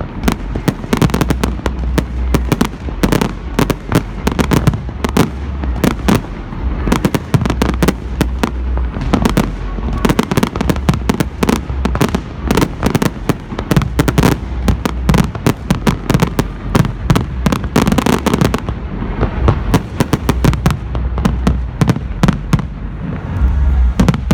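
Fireworks going off in rapid, continuous succession: dense crackling and sharp bangs, many per second, over a low rumble of booming shells.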